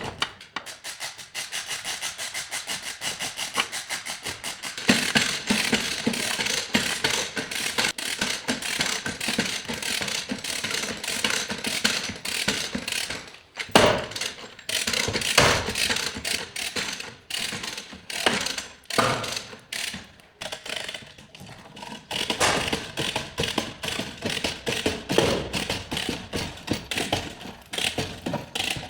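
Tools working on a car: rapid, dense mechanical clicking and rattling, with a few sharper knocks about fourteen and fifteen seconds in.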